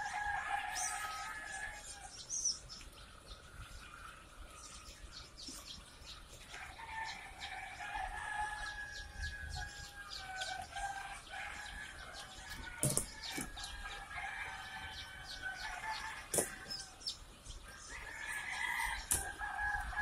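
A crowd of newly hatched chicks peeping continuously in plastic hatchery baskets. Two sharp knocks, as of the baskets being handled, come in the second half.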